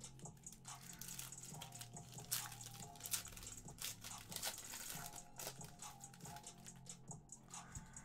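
Panini Optic basketball cards being handled: short clicks and rustles as cards are sorted and tapped onto a stack, with a foil pack wrapper being handled. Faint background music underneath.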